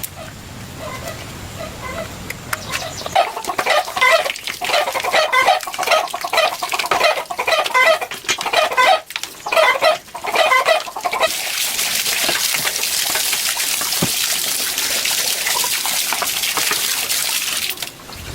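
Chickens clucking in a rapid run of repeated calls for several seconds, then a steady hiss that starts suddenly and stops abruptly after about seven seconds.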